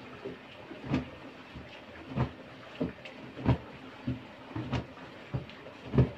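Ground soybean mash sloshing in a cloth filter as it is rocked back and forth over the straining vat, a regular swish about every 0.6 seconds over a steady hiss. This is the straining of the soy milk from the pulp in tofu making.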